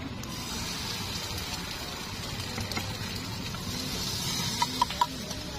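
Steady hiss of batter sizzling in a small frying pan over a gas burner. Near the end come a few short clinks as a metal spatula works the pan.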